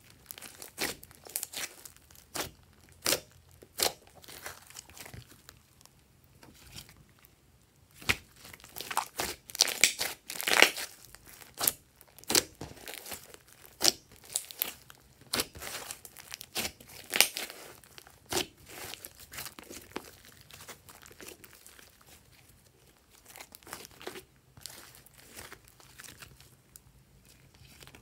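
Glossy slime being squeezed, kneaded and stretched by hand, giving irregular sticky clicks and crackling pops in uneven clusters. The pops are busiest in the first half and grow sparser toward the end.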